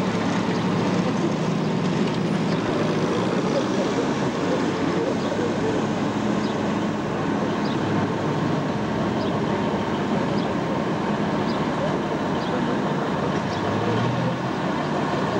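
Engines of WWII military vehicles driving past: a tracked Universal carrier, then a six-wheel army truck, giving a steady mechanical rumble, with crowd chatter in the background.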